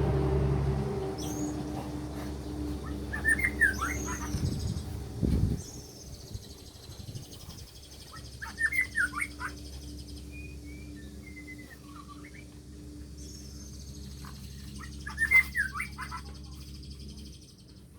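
Oriental magpie-robin singing in bursts of rapid whistled, sliding phrases, loudest twice, about a third of the way in and near the end. A steady low engine hum runs underneath, louder for the first few seconds, and stops shortly before the end.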